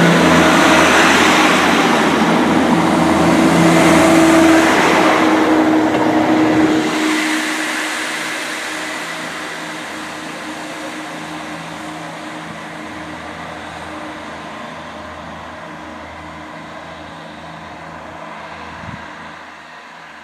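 Great Western Railway diesel multiple unit running alongside the platform at close range, a loud engine drone with a steady hum. About seven seconds in this gives way abruptly to a much quieter, steady engine drone from a Class 158 diesel multiple unit approaching along the line.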